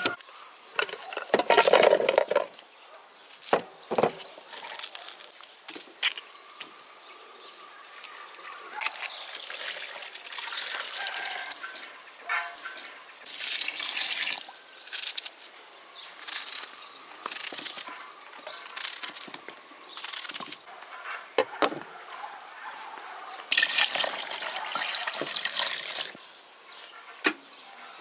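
Water poured from a glass jug into a metal pot of dried meat pieces, in several separate pours of a few seconds each, with sharp knocks and clatter of the pot and jug being handled in between.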